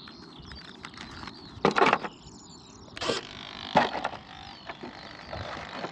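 A few short clattering knocks from the 3D-printed foam-plastic model plane and its drop-away wheel dolly being handled, the loudest about two seconds in, with birds chirping faintly.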